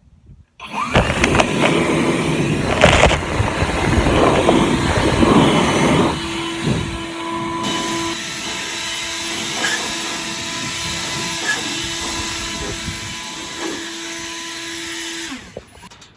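Blower blasting air into the hay baler to clear out loose hay and dust. It starts suddenly about half a second in, sounds rougher and louder for the first few seconds, then runs steadily with a constant hum and hiss before cutting off near the end.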